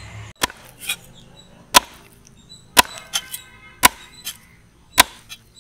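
A large cleaver chopping leather jacket fish into pieces on a wooden chopping block: sharp knocks of the blade into the wood, about one a second, with lighter taps between.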